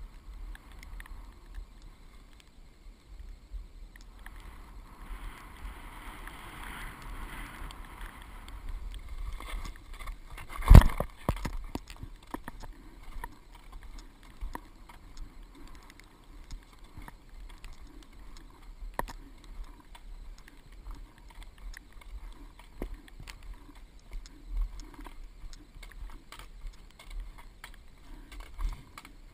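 Skis sliding over snow, picked up by a helmet-mounted camera: a steady low rumble and hiss with scattered small clicks, and one sharp knock about eleven seconds in.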